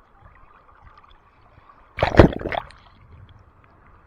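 Seawater splashing close to the microphone: one loud splash about two seconds in, over a low steady wash of surf.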